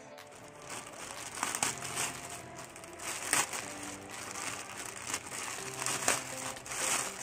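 Thin plastic courier mailer bag crinkling and rustling as hands handle and open it, with sharper crackles now and then.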